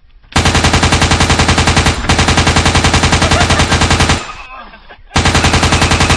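Rapid automatic gunfire, about ten shots a second, in three long bursts. The first two run back to back for about four seconds and trail off, and a third burst starts about five seconds in and stops abruptly.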